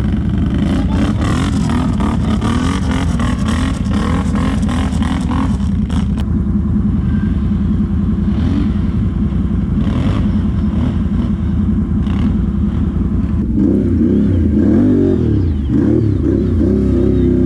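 ATV engine running hard, with quick rattling knocks over the first few seconds and revving up and down near the end.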